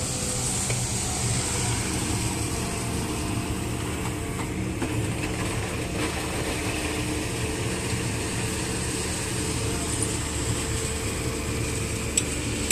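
Caterpillar 320D2 excavator's diesel engine running steadily with its hydraulics working as the boom and bucket swing. A single sharp click near the end.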